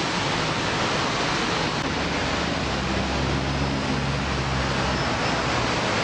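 Steady road traffic noise at a busy roundabout, with a heavy vehicle's engine humming more loudly for a couple of seconds from about two and a half seconds in.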